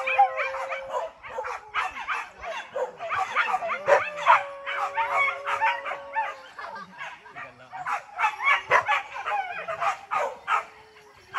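Pack of hunting dogs yelping and barking excitedly, with many short, high yips overlapping almost without a break.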